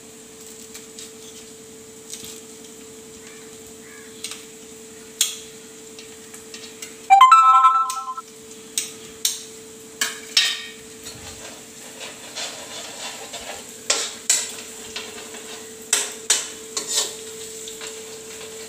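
Ginger and garlic sizzling faintly in oil in a kadai under a steady hum, with a knife knocking on a cutting board at irregular intervals as onions are chopped. About seven seconds in, a loud electronic tone sounds for about a second.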